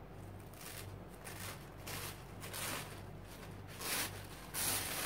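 Paper napkin rustling and crinkling in short bursts as its thin plies are peeled apart, loudest near the end.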